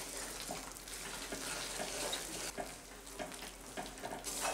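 Wooden spatula stirring and scraping a thick, sticky jaggery, mawa and ground dry-fruit mixture around a nonstick kadhai, in irregular short strokes. The mixture is cooking over a low flame with a faint sizzle.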